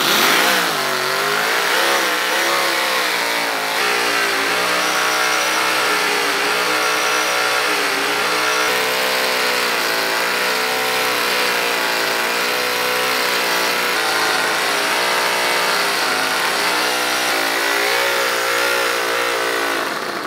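Toyan FS-V800 nitro-fuelled V8 model engine running at speed as it drives the drill chuck, its pitch rising near the start and then wavering up and down as it is throttled and loaded by the bit boring into wood.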